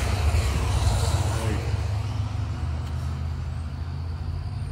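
A motor vehicle passing on the road: a wide rush of tyre and road noise that fades over the first two seconds as it moves away, over a steady low engine rumble.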